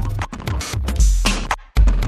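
Electronic music with deep bass pulses and choppy, stuttering cuts; it drops out briefly near the end and comes straight back.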